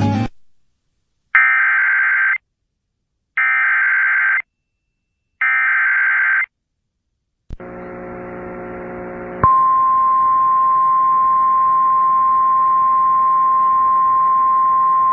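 Emergency Alert System activation: three one-second bursts of SAME header data tones, a second apart, opening an EAS severe thunderstorm warning. A hum with a click follows, then about two seconds later a single steady 1050 Hz NWS alert tone, held to the end.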